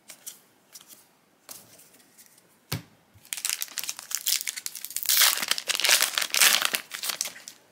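A few light clicks, then from about three seconds in a foil trading-card booster pack being torn open, its wrapper crinkling and crackling for about four seconds.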